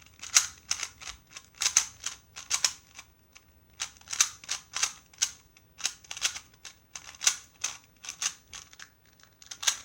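Speed cube being turned fast during a timed solve: runs of sharp plastic clicks and clacks, several a second, broken by short pauses about three seconds in and near the end.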